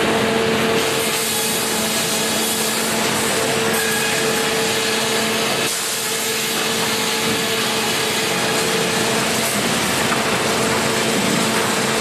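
Grey Series 2000 flitching and resaw bench at work: the saw cutting timber amid a dense, continuous sawmill machinery noise. A steady hum runs over it and fades out about nine seconds in.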